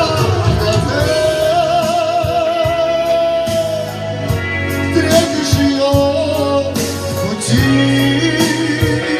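A song: a long sustained vocal line with vibrato over steady band accompaniment and a regular beat.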